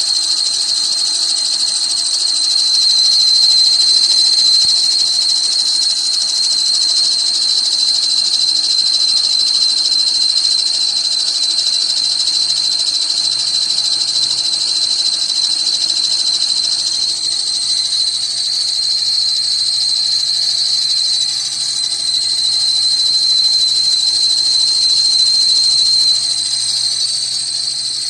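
Serpentine-belt pulley on a 1999 Dodge Caravan's running engine, giving off a steady, high-pitched whistling squeal: the noise of a faulty pulley.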